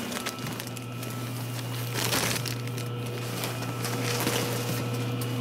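Crunching, rustling handling noises and scattered clicks, loudest about two seconds in, over a steady low hum.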